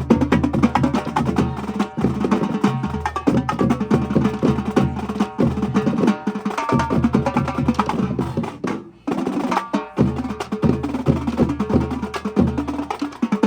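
Marching band drumline playing a fast, dense percussion cadence of drum strokes, breaking off for a moment about nine seconds in before coming back in.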